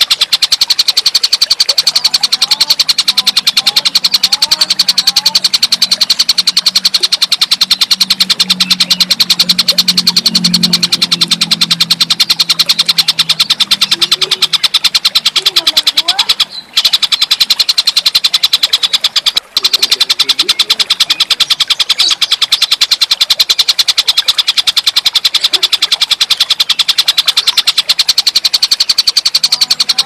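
Tengkek buto (Javan kingfisher) calling in a fast, continuous rattle, played as a bird-training masteran recording. It cuts out twice briefly in the middle, and a low hum lies under it in the first half.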